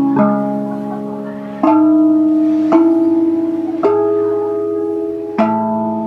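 RAV drum, a handpan-shaped steel tongue drum, struck with wooden sticks: five single notes at roughly one-and-a-half-second intervals, each ringing on and overlapping the next.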